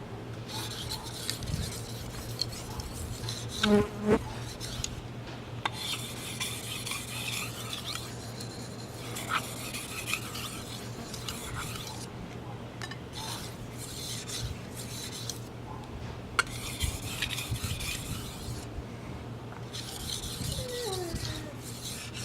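Knife blade stroked back and forth on a whetstone: gritty scraping in runs of a few seconds with short pauses between them, and a couple of sharp knocks about four seconds in, over a steady low hum.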